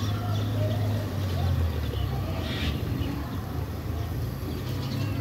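A steady low mechanical drone, like an engine running, holding an even pitch throughout.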